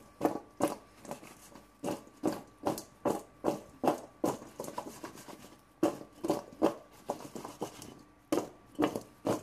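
Seasoned raw potato wedges being shaken in a container, the pieces knocking against its sides in rhythmic shakes about two or three times a second, with two brief pauses.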